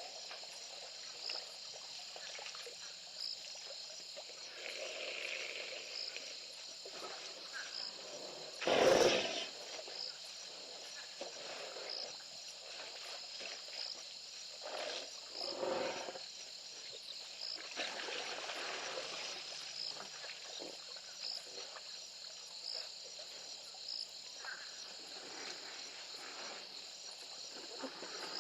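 Insects chirping and droning steadily, with a regular chirp about once a second. Several brief, noisy rushes of sound rise over it, the loudest about nine seconds in.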